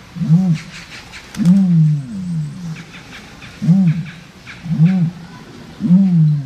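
An animal calling over and over: a low, short note that rises and falls, about once a second, six times, with faint clicks in between.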